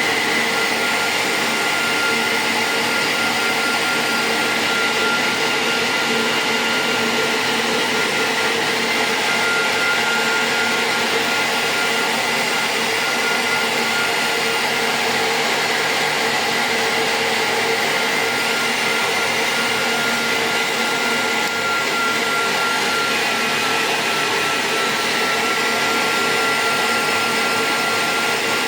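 Cooling fans of a 2000-watt IPL epilation device's power supply running steadily while it is tested after repair: a constant rush of air with a faint steady high whine.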